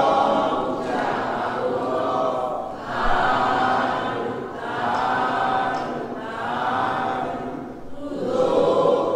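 A group of voices chanting a Buddhist chant in unison, in drawn-out phrases of a second or two that swell and fade one after another.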